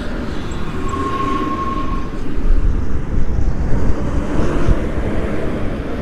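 Wind rumble on the microphone of a moving e-bike, with road traffic passing. A thin steady whine sounds briefly about a second in.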